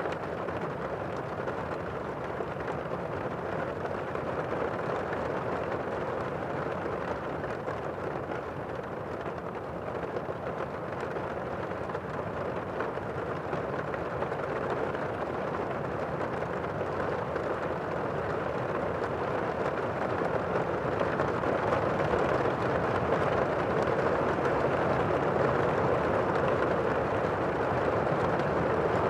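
Steady rain, an even rushing wash with no separate drops or thunderclaps standing out, slowly growing louder through the second half.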